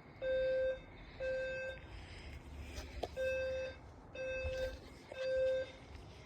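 Fire alarm horn strobe sounding the temporal-three evacuation pattern, heard faintly: low-pitched half-second beeps, two, then a pause, then three more.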